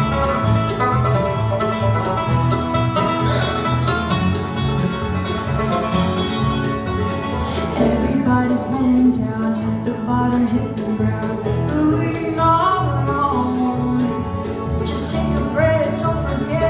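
A bluegrass band playing: banjo, acoustic guitar, mandolin and upright bass.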